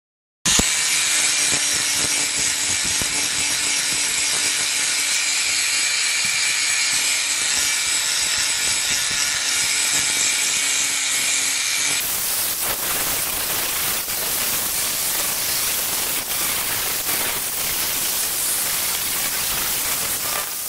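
Angle grinder with a flap disc grinding rusty steel clamped in a bench vise, throwing sparks. It starts abruptly about half a second in and runs steadily, with a faint motor whine under the grinding; about twelve seconds in the sound turns rougher and harsher.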